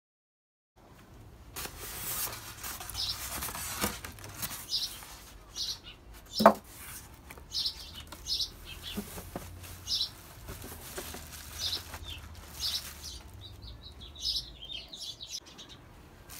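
Cardboard box and foam and plastic packaging rustling and scraping as an air fryer is lifted out of its box, with one sharp knock about six and a half seconds in. A bird chirps about once a second in the background.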